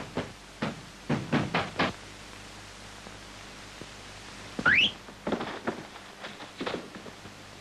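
Quick knocking on a wooden front door, a run of sharp raps in the first two seconds. About two thirds of the way in comes a short squeal rising steeply in pitch, followed by a few scattered knocks and thuds.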